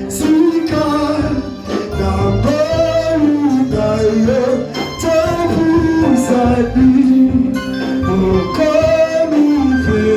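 Worship music: singing over a band with guitar, bass and drums.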